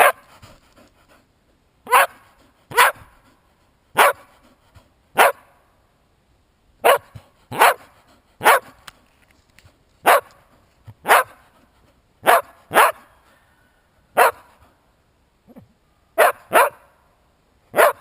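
Dog barking over and over, about sixteen single barks roughly a second apart with brief pauses between short runs. It is a trained search dog's bark alert, kept up until the handler rewards it.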